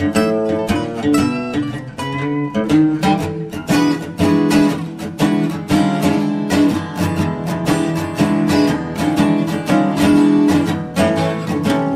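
Background music: acoustic guitar playing, plucked and strummed notes in a quick rhythm.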